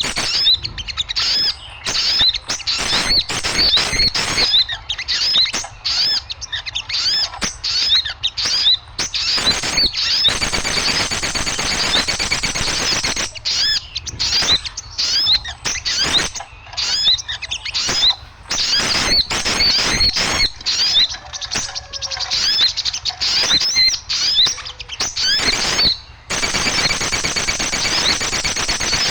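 Many small birds chattering noisily in a fast run of short, high chirps, thickening into denser chatter twice, partway through and near the end. It is a recording of small-bird calls of the kind played to lure small birds in.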